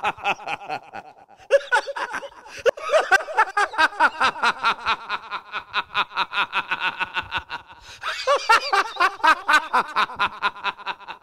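A character's long, rapid cackling laughter in several bouts, with short breaks between them, cutting off sharply at the end.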